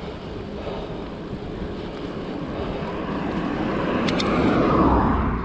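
Wind and road noise from a moving bicycle, swelling to a peak near the end as a motor vehicle goes past, with two quick clicks about four seconds in.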